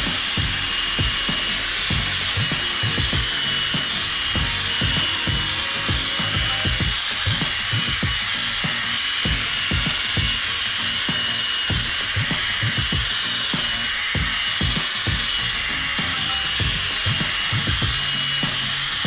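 Headlight lens being sanded with 1000-grit abrasive: a steady scuffing and rubbing, with repeated strokes a few times a second.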